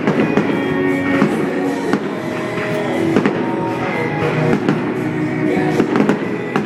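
Fireworks bursting, several sharp bangs and crackles scattered through, over loud pop music with a steady beat.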